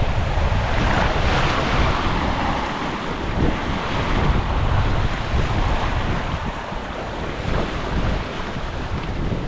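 Water rushing past the hull of a sailing yacht under way, with wind noise on the microphone. The rush swells and eases with the waves.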